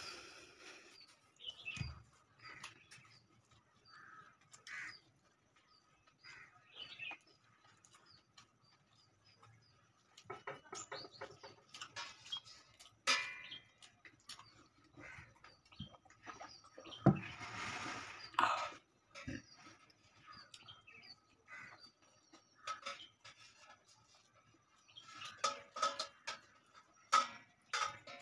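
Close-up eating by hand: scattered chewing and mouth-smacking sounds, with sharper crunches near the end as a piece of papad is bitten. Birds call faintly in the background.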